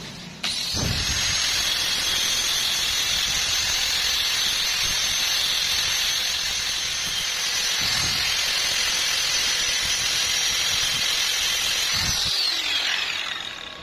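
Angle grinder with an abrasive disc switched on about half a second in and grinding a bevel along the edge of a steel plate: a steady high whine over a hiss of disc on steel. Near the end it is switched off and winds down, its whine falling in pitch.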